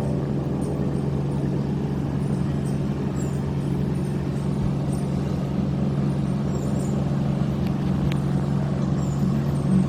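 Steady low hum of a running motor, unchanging throughout.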